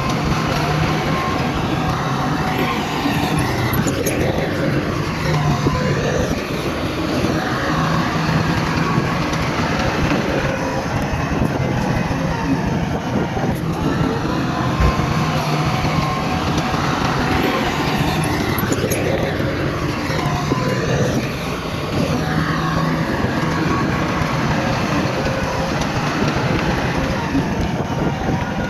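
Heavy diesel construction machinery running steadily, a bulldozer and dump trucks at work, with the engine pitch swooping up and down a few times.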